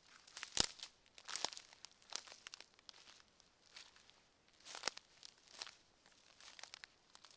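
Footsteps on a forest path, each step a dry crunch, at a steady walking pace; the loudest step falls about half a second in.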